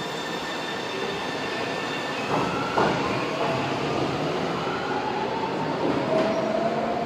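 São Paulo Metro Line 1 train pulling away from the platform: steady running rumble, a brief wheel squeal a couple of seconds in, then the traction motors' whine rising slowly in pitch as it gathers speed.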